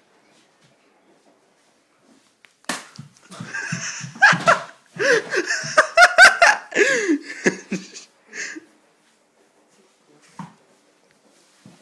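Hearty fits of laughter with high squeals, starting a couple of seconds in and dying away about six seconds later, with a few knocks and thumps mixed in.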